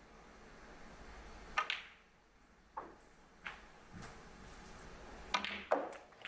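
Snooker balls clicking as shots are played: the cue tip striking the cue ball and ivory-hard resin balls knocking together, a sharp pair of clicks about a second and a half in, two single knocks after it, and another pair near the end as the next shot is struck. A faint hush of the arena runs underneath.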